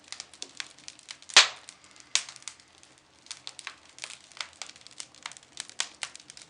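Irregular crackling and clicking, with one sharp, louder crack about a second and a half in.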